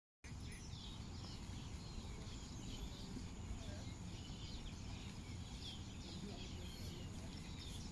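Faint outdoor ambience: birds chirping repeatedly over a steady low rumble.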